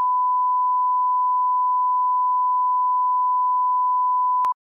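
Steady 1 kHz reference tone played with SMPTE colour bars, a single pure beep held at one pitch that cuts off suddenly with a click near the end.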